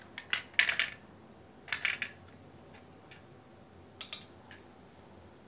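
Clicks and clatter of a dismantled graphics card's parts, its plastic fan shroud and finned metal heatsink, being handled and set down on a hard tile floor. The sounds come in three short bunches of clicks.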